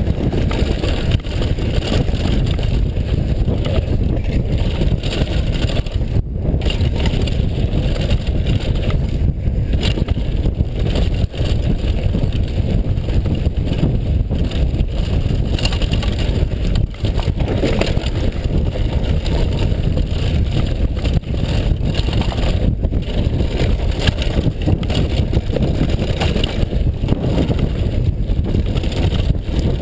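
Steady low rumble of wind buffeting the camera microphone and knobby tyres running over a dirt and gravel trail as a downhill mountain bike descends at speed, with small knocks and rattles over the bumps.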